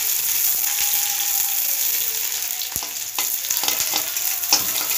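Onions and dried red chillies sizzling in hot oil in a steel kadai while being fried until red, with a few sharp clicks of a stirring spoon against the pan in the second half.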